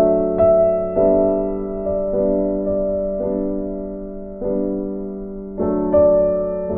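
Slow background piano music: notes and chords struck about once a second and left to ring out.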